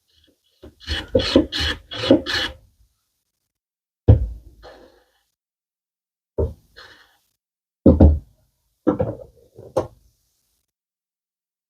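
A No. 4 hand plane taking about five quick short strokes across the end of a wooden slat, shaving a bevel, followed by several separate dull wooden knocks.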